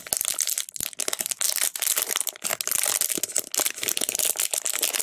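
Thin clear plastic bag crinkling and crackling as fingers pull it open and work a small toy out of it, a dense, continuous run of crackles.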